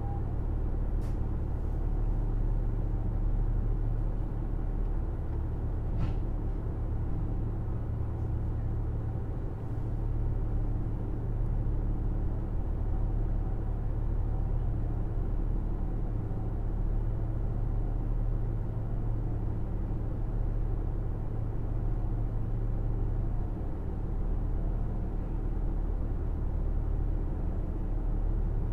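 KiHa 75 diesel railcar running along the line: a steady, deep drone of diesel engine and wheels on rail, with two faint clicks in the first few seconds.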